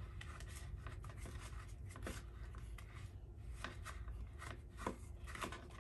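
Plastic spoon scraping and tapping in a small plastic tub as a child stirs candy slime mix: a run of faint, irregular clicks and scrapes.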